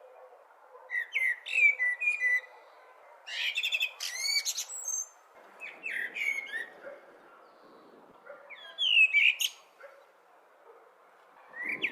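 A blackbird singing in short whistled phrases, about five of them with pauses in between, each gliding up and down in pitch, over a faint steady background noise.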